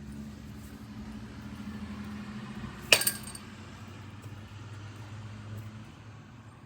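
A baseball bat striking a ball once, about three seconds in: a sharp hit with a short metallic ring. A steady low hum runs underneath.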